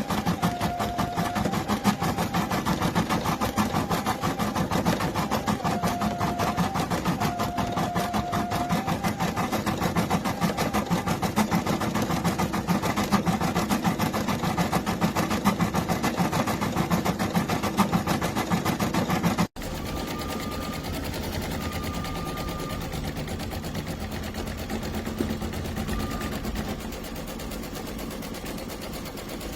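Embroidery machine stitching at speed: a fast, steady rattle of needle strokes with a faint whine of the motor. About two-thirds through, the sound cuts abruptly to a quieter stretch of machine stitching.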